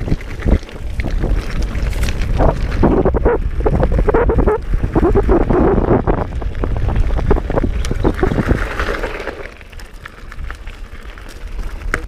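Specialized Rockhopper Comp 29 hardtail mountain bike riding over dirt trail and gravel: tyres crunching and the bike rattling with many quick clicks and knocks, over a steady rumble of wind on the camera microphone. It goes quieter for a couple of seconds near the end.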